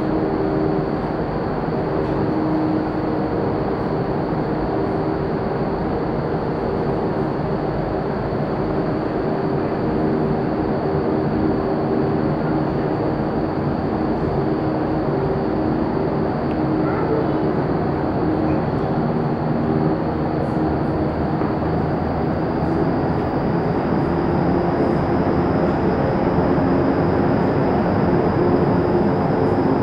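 Vertical wind tunnel for indoor skydiving running at flying speed, heard from inside the flight chamber: a loud, steady rush of air with a fan hum and a thin high whine. The whine rises slightly in pitch over the last several seconds.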